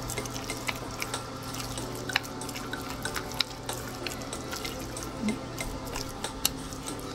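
Chopsticks stirring a thick batter of shredded potato and flour in a bowl: soft wet squelches and irregular light clicks. A steady low hum runs underneath.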